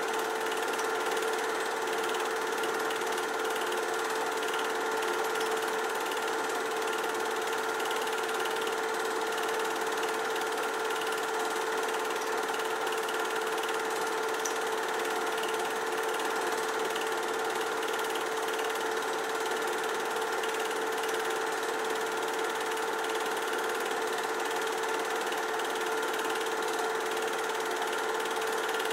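Film projector running steadily: an even mechanical whir with a constant hum, unchanging throughout.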